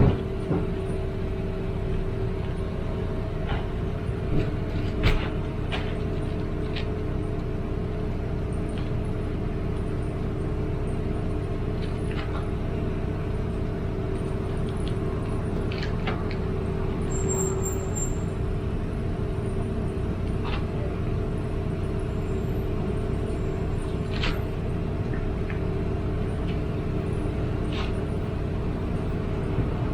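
A motor vehicle running: a steady low rumble with a constant hum, broken by a few light clicks.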